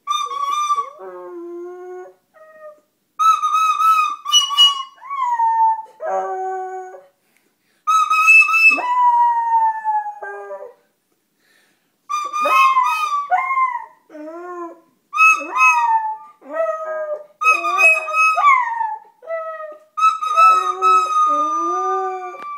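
A dog howling along to a flute: held flute notes mix with the dog's wavering, sliding howls, in phrases of a few seconds broken by short pauses.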